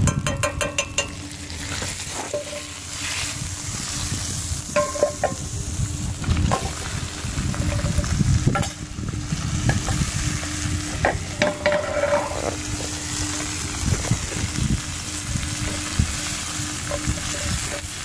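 Sliced onions frying in butter in a cast iron skillet: a steady sizzle, with a wooden spatula scraping and stirring them around the pan.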